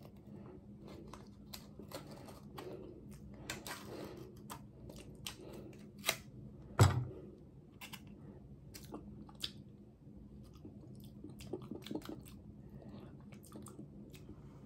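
Small paper topping packet crinkling and tearing as it is bitten and pulled open by mouth and hand: scattered soft crackles and clicks, with one louder thump about seven seconds in.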